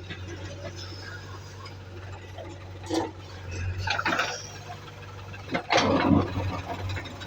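Diesel engine running steadily at a low hum, with three short noisy bursts about three, four and six seconds in, the last the loudest.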